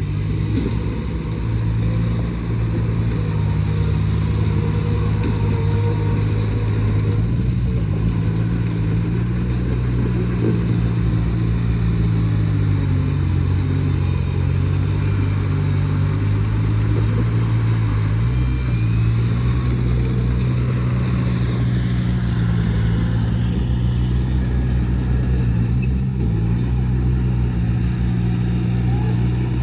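Diesel engine of heavy earth-moving machinery running steadily, its note sagging and picking back up a couple of times near the middle.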